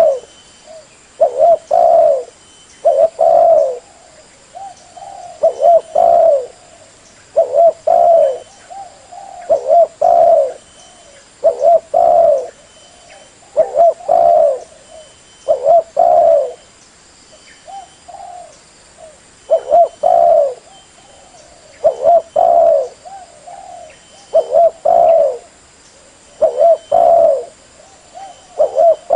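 Spotted dove (terkuku/derkuku) cooing: short phrases of a few low coos, repeated about every two seconds.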